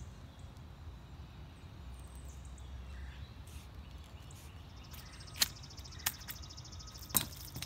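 Three sharp clicks as the leather blade guard is worked off a Flexcut drawknife. A fast, high-pitched trill runs through the last few seconds, over steady outdoor background.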